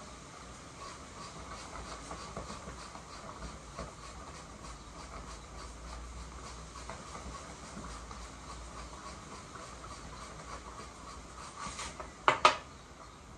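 Hand work on an old pellet gun at a workbench: light scraping and small taps of a hand tool on the gun over a steady faint hum, then two sharp knocks in quick succession near the end.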